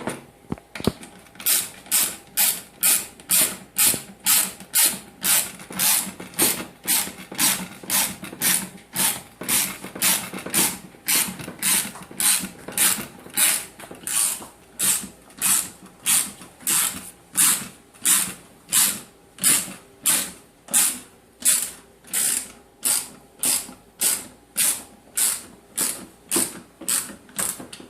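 Ratchet wrench clicking in a steady back-and-forth rhythm, about two strokes a second, tightening a screw that holds the radiator fan motor in place.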